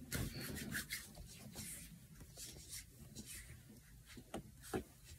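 Faint rubbing of hands spreading lotion on skin, loudest in the first second, followed by scattered soft scuffs and a small knock.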